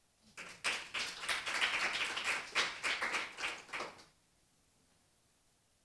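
Audience applauding: many hands clapping together, starting just after the start and stopping fairly abruptly after about four seconds.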